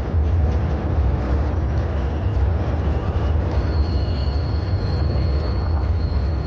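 Train running: a steady, heavy low rumble, with a thin high whine joining about halfway through.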